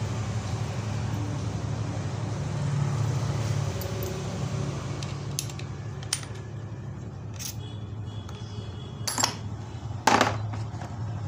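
Hard clicks and clinks, about five in the second half, from the side handle of a corded hammer drill being fitted and clamped onto the drill. The loudest click comes about ten seconds in. A steady low hum runs underneath.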